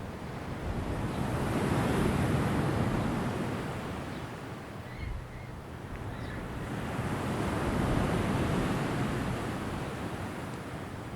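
Ocean waves breaking and washing onto shore, the surf swelling and fading twice, once about two seconds in and again about eight seconds in.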